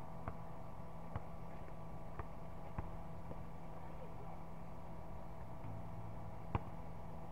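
A basketball bouncing now and then on a hard court, as a few sharp, irregularly spaced knocks over a steady hum, the loudest about six and a half seconds in.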